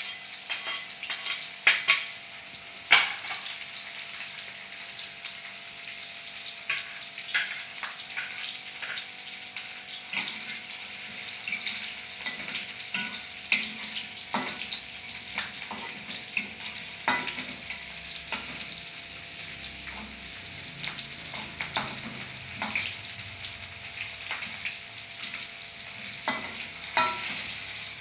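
Spice mix of chopped chilies and aromatics sizzling steadily in hot oil in a small wok, with frequent short clicks and scrapes as a metal spatula stirs it against the pan.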